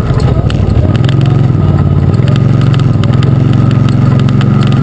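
Arctic Cat Wildcat UTV engine running steadily while driving, its note dipping briefly near the start before settling, with scattered sharp knocks and rattles throughout.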